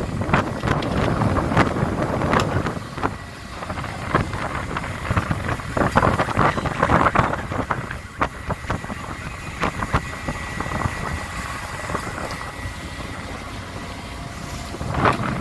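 A longline fishing boat's steady rumble with wind on the microphone, broken by frequent sharp knocks and clatter. A thin steady high whine sounds through the middle.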